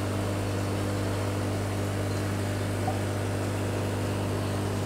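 Steady low electric hum of aquarium equipment running, with a few fainter higher tones above it.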